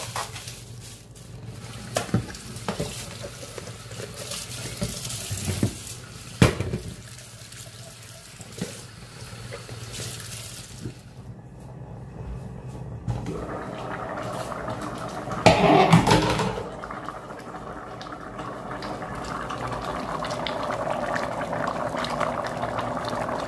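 Hands handling a plastic bag of washed bitter leaf at a steel sink, with a few sharp clicks. Then a pot of African breadfruit (ukwa) simmers on an electric stove, with a loud metal clatter about halfway through as the pot lid is lifted, followed by steady bubbling that grows toward the end.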